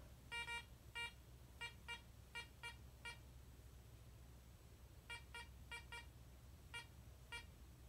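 Garrett Ace 300 metal detector beeping as a nickel is waved past its search coil in an air test, detected at about six and a half inches. About a dozen short beeps, mostly in quick pairs, with a pause of about two seconds in the middle.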